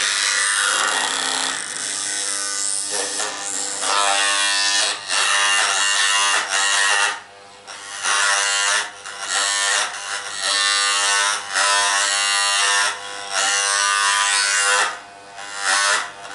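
Small handheld electric device buzzing, its steady motor hum breaking off and resuming every second or two.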